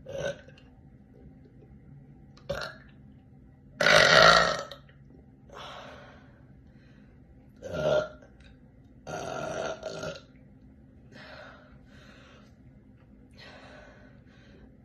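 A woman burping, a string of separate burps a second or two apart; the longest and loudest comes about four seconds in.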